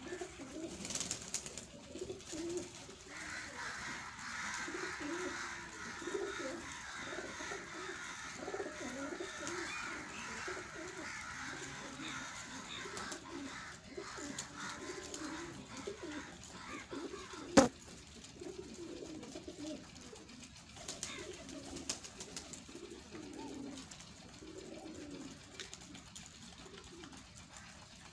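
A flock of domestic pigeons cooing continuously, many low overlapping coos, with one sharp click about two-thirds of the way through.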